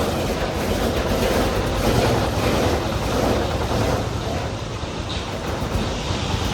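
Concrete mixer running with a steady mechanical rumble.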